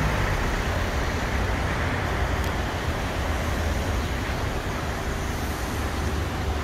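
Steady low rumble of car engines and road traffic.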